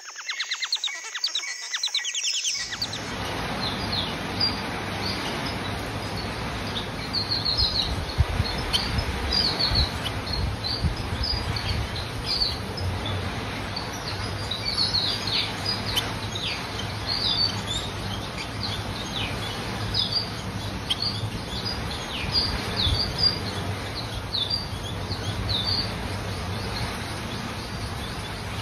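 Bengalese finches chirping: many short, high chirps at irregular intervals over a steady background hiss and hum, after a short intro sound of about two seconds at the start.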